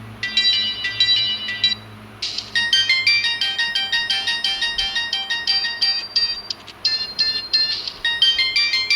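Samsung GT-E1150 mobile phone playing ringtones: quick electronic melodies of short beeping notes. One tune stops about two seconds in, and a different, busier tune starts right after.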